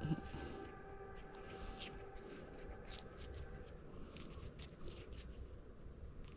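Faint rustling and crackling of leaves and stems being brushed or handled, with a faint steady hum underneath that stops a little past halfway.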